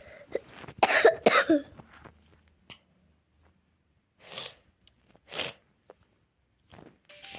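A person coughing, a quick run of three or four coughs about a second in, followed later by two softer breathy sounds; the cougher is a little ill.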